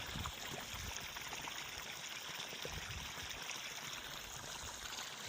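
Water pumped out by a sump pump running in a steady stream into a pond.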